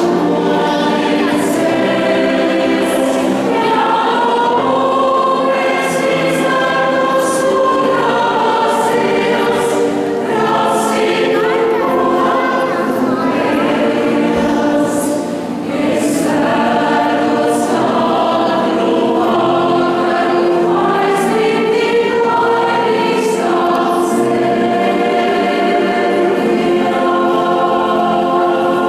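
Choir of mostly women's voices singing in several parts, with held, overlapping notes and one short break in the phrase about halfway through.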